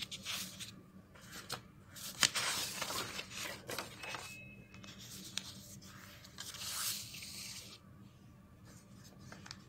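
Sheets of printed paper rustling as the pages of a question-paper booklet are turned over, in two spells: a longer one opening with a sharp crackle about two seconds in, and a shorter one near the end.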